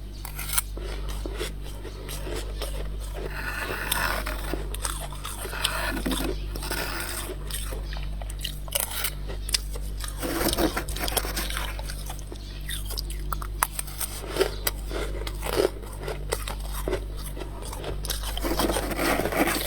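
Close-up bites and chewing of crunchy frost ice, a string of irregular crunches over a steady low hum.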